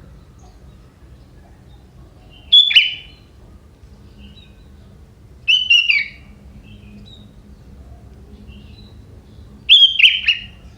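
Young sooty-headed bulbul calling: three short phrases of quick falling notes, a few seconds apart.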